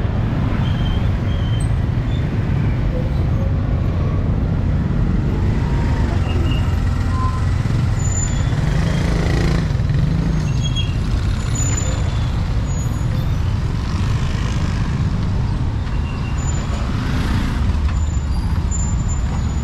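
Busy street traffic: a steady low rumble of motorbike and car engines, with vehicles swelling past a few times.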